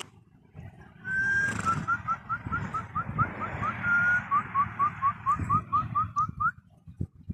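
High whistled notes: one long held note, then a quick run of short rising chirps, about four a second, broken by a second held note midway. Low thumps sound underneath.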